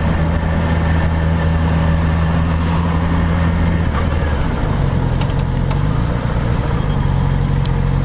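Motorcycle engine running steadily, its note shifting to a different pitch about four seconds in.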